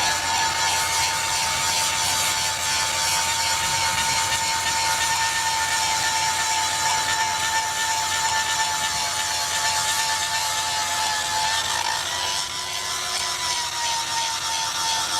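A power tool running on rail steel, with a steady high whine over a hiss of grinding or cutting. About twelve seconds in the whine dips and comes back up as the tool bears on the work.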